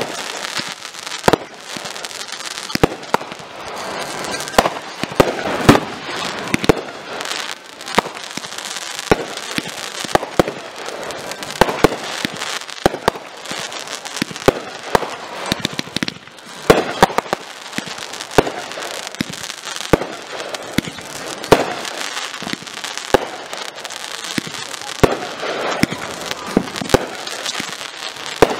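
Aerial fireworks bursting: a long, irregular string of sharp bangs, about one to two a second, over a steady background din.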